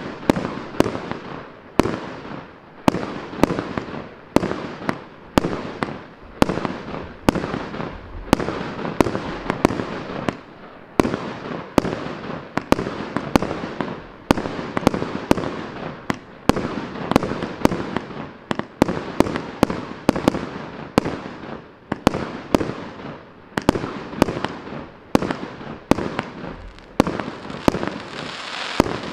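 Maxsem MC301 consumer fireworks cake (300 shots, 30 mm caliber) firing continuously: sharp bangs about two a second as the shots launch and burst, with noise from the bursting stars in between. A hiss builds near the end.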